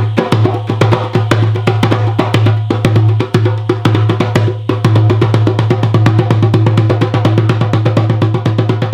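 A drum played fast and evenly, about ten strokes a second, with a steady low tone ringing underneath.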